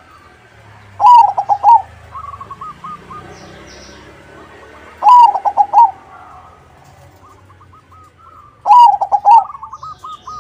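Zebra dove (a 'crossing'-bred perkutut) singing its staccato cooing song: three loud phrases, each a quick run of cooing notes, about 1, 5 and 9 seconds in. Between them come fainter runs of short, clipped coo notes.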